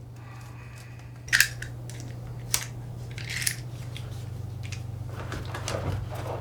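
Handling noise from work on the plumbing: a few short, sharp scrapes and clicks, about a second apart, over a steady low hum.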